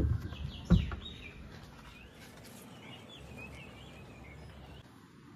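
A heavy, rusty old starter motor set down on a wooden workbench: two hard knocks, the second under a second after the first. Then birds chirp for a few seconds.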